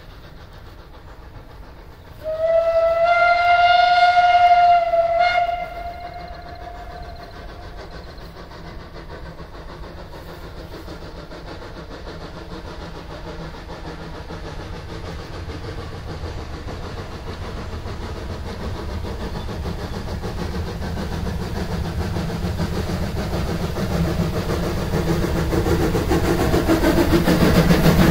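Metre-gauge steam locomotive sounding its whistle in one long steady blast of about three seconds, then the train approaching, its running noise growing steadily louder until it draws close.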